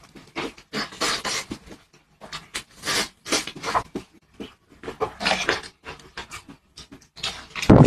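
Fast eating of chicken wings: a string of short, irregular, wet mouth noises of chewing and smacking.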